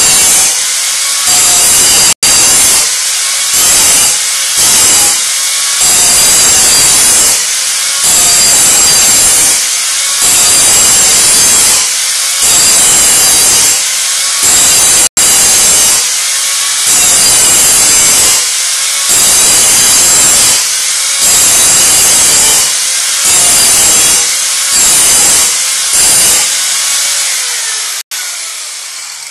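Electric angle grinder cutting through the rusty steel skin of a car's rear quarter panel, its loudness swelling and easing in repeated passes every second or two. Near the end it is switched off and winds down with a falling pitch.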